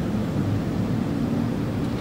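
Steady low rumble of city ambience: a continuous hum of distant traffic with no distinct events standing out.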